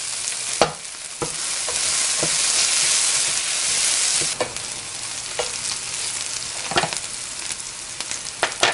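Sliced onion sizzling as it fries in vegetable oil in a stainless steel saucepan, stirred with a wooden spoon that knocks against the pan now and then. The sizzle is loudest from about one to four seconds in.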